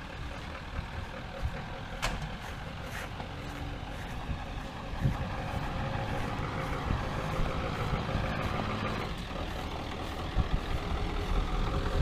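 A vehicle engine idling steadily, getting louder toward the middle, with a sharp click about two seconds in.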